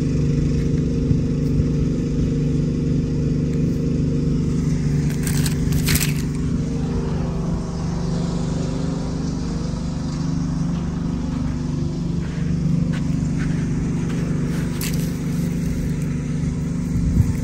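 A dump truck's diesel engine running steadily, a constant low hum. A few brief high scrapes come about five to six seconds in.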